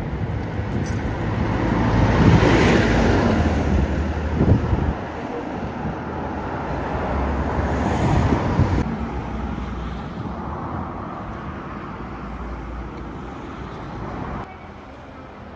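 Road traffic passing close by: a small bus goes past, loudest about two to three seconds in, then a car passes about eight seconds in. After that the traffic noise dies down.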